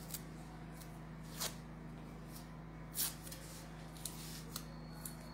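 Lace and other items being handled on a table: a few brief, soft rustles and clicks, the clearest about three seconds in, over a steady low hum.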